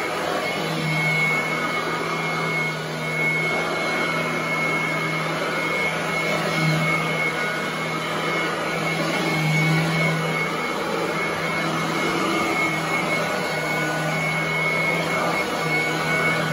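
Royal commercial upright vacuum cleaner running steadily as it is pushed back and forth over carpet: a constant motor hum with a thin high whine over it.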